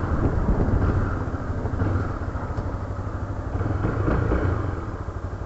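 Motorcycle riding heard through wind buffeting on an SJ4000 action camera's microphone: a dense low rumble of wind with the Honda CB300R's single-cylinder engine running underneath as a steady, pulsing drone.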